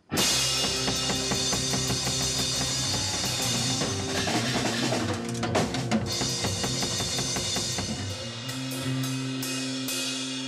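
Rock band playing loud: Yamaha drum kit, electric guitars and bass guitar. It starts suddenly, and after about eight seconds the band holds a ringing chord under repeated cymbal crashes.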